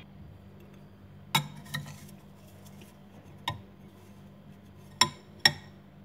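Metal spoon clinking against a glass bowl of scraped freezer frost: five sharp clinks with a short ring, the two loudest close together near the end.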